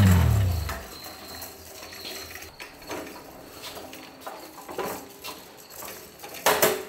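Background rock music slides down in pitch and stops within the first second. Then scattered light metallic clinks and knocks as a fabricated steel channel section is rolled on caster-wheeled roller stands, with a louder knock near the end.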